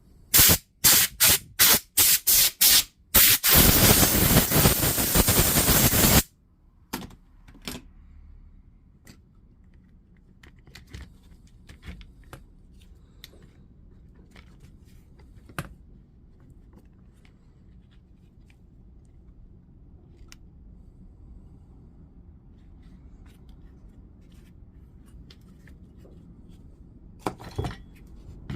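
Short blasts of compressed air, about eight in quick succession, then one long blast of about three seconds that cuts off suddenly, blowing dust out of an opened DeWalt DCS355 oscillating multi-tool. Faint clicks and taps of the tool being handled follow.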